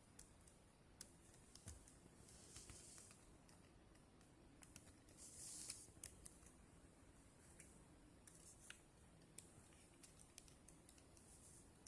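Near silence with faint scattered small clicks and a couple of brief soft rustles.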